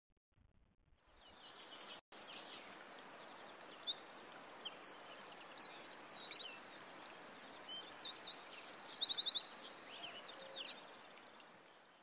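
Several songbirds singing and chirping, with rapid trills, over a soft even hiss. The sound fades in over the first couple of seconds and fades out near the end.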